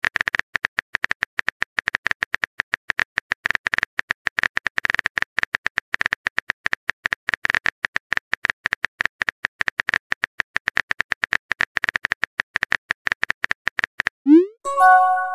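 Phone keyboard typing sound effect: a fast, uneven run of small clicks for about fourteen seconds. It stops, and near the end comes a quick rising swoosh and a short bright chime as the message is sent.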